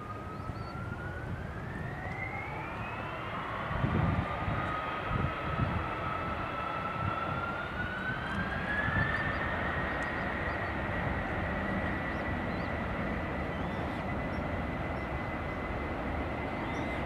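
Airbus A330 twin jet engines spooling up to takeoff thrust: a whine with overtones rises steadily over several seconds, then holds at a steady pitch as the takeoff roll begins. Low rumble swells about four to six seconds in.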